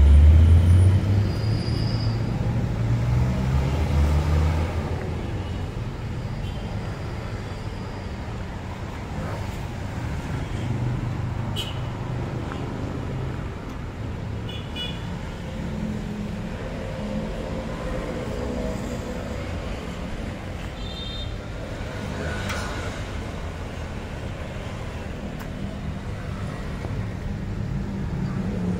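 A Toyota Rush SUV's engine running as it drives slowly in and pulls up, loudest in the first few seconds, then settling to a steady low rumble.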